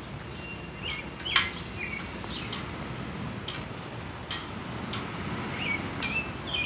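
Birds chirping: short, curling whistled notes repeated every second or so over a steady background hiss, with a sharp click about a second and a half in.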